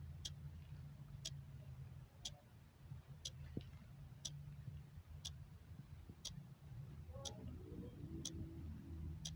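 Clock ticking, one sharp tick each second, over a faint low hum.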